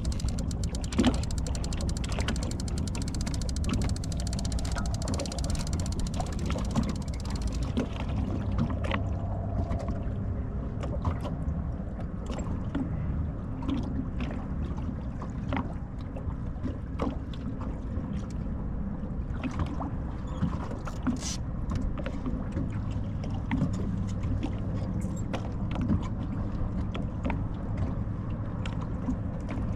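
Small fishing boat drifting in the wind, with water lapping and slapping against the hull as scattered small knocks over a steady low rumble.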